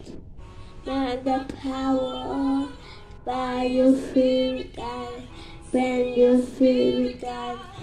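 A child singing a song into a handheld microphone, in three held phrases with short pauses for breath between them.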